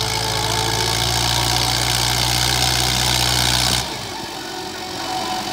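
Fiat 640 tractor's diesel engine running steadily under load. The sound cuts off abruptly about four seconds in, leaving something quieter.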